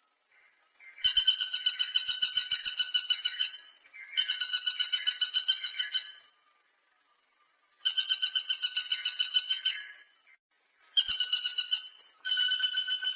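Woodpecker calling: a rapid rattling series of sharp, high notes, about eight a second, given in five bouts of one to two and a half seconds with short pauses between.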